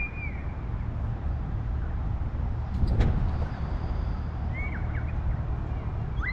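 Steady low rumble with a bird calling short falling whistles at the start and twice more near the end. A single sharp knock about three seconds in.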